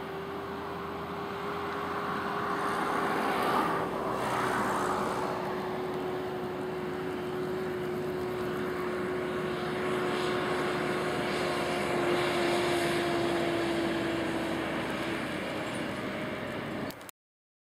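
A distant engine drone: one steady tone that sinks slowly in pitch and fades out about fifteen seconds in, over a steady background hiss. The sound cuts off abruptly near the end.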